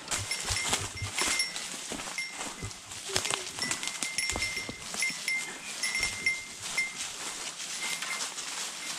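Footsteps crunching and rustling through dry bamboo leaf litter and fallen bamboo stems on a downhill trail, in irregular steps. A faint high ringing tone comes and goes throughout.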